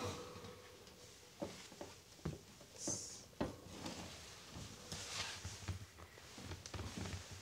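Soft knocks, thuds and rustling as a person in socks shifts, kneels and steps on a wooden parquet floor, with a brief high hiss about three seconds in.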